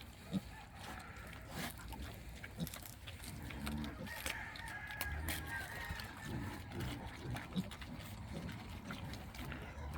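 Chickens clucking faintly, with scattered small clicks and knocks.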